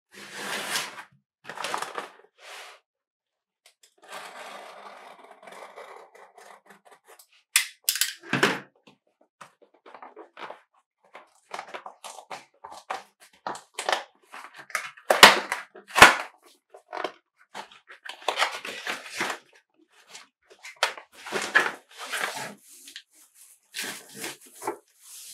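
Cardboard mailing box being handled and opened by hand: a long string of scrapes, rustles and knocks, with two sharp knocks about halfway through the loudest.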